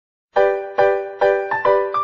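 Intro music: a keyboard playing repeated chords, each struck about twice a second and fading before the next, starting about a third of a second in.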